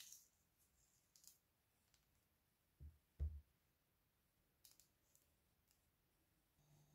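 A mandarin being peeled and pulled apart by hand: faint scattered clicks and tearing of peel and segments, with two low thumps about three seconds in as the fruit is set down on the wooden table.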